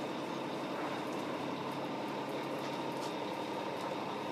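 A passenger ferry's engines running, heard inside the cabin as a steady hum with no break or change.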